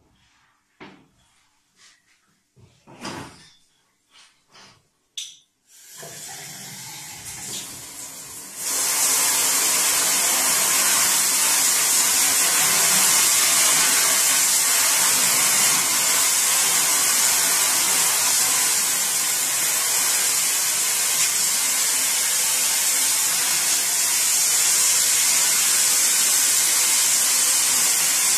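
A few short rubbing and handling sounds, then water running from about six seconds in. Just before nine seconds a hand-held sink spray nozzle opens up into a loud, steady hiss of water spraying onto a gum-oil print lying in a steel sink, rinsing it.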